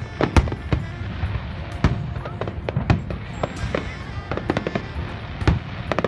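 Fireworks display exploding in an irregular series of sharp bangs, several a second, some louder than others.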